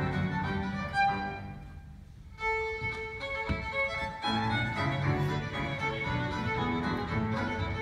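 Solo fiddle playing a lively tune with piano accompaniment. About two seconds in, the music briefly thins out, a held fiddle note follows, and the full accompaniment comes back in.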